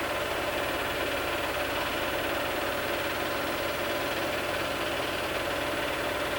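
Steady mechanical hum with hiss from a home-movie film projector running, unchanging throughout.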